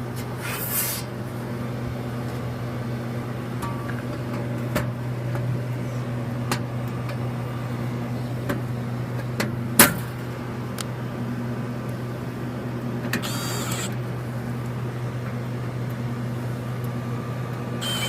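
Refrigeration equipment running with a steady low electrical hum, with scattered small clicks and knocks of handling, one sharper click about ten seconds in, and two short hissy rustles.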